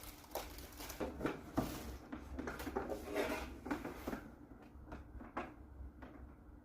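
Scattered light clicks, knocks and rattles of a power cord and plug adapter being handled and fitted, thinning out to a few single clicks after about four seconds.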